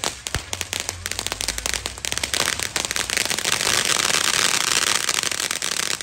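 Ground fireworks crackling: a rapid, irregular stream of sharp little pops that thickens into a dense, continuous crackle about halfway through, then thins again near the end.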